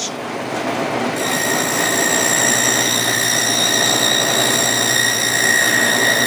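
Power saw running steadily while it cuts rabbet joints into the wooden end pieces of beehive boxes. The noise builds over the first second, and a high steady whine comes in about a second in and holds.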